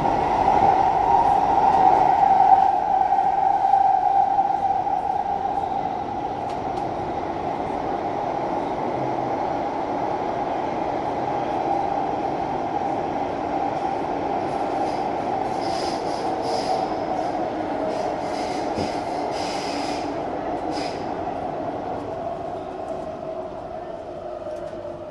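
Singapore MRT train cabin while the train runs between stations: steady running noise of wheels on rail under a loud, steady high whine, with a run of brief sharp ticks and rattles in the middle. The whole sound eases off slightly near the end.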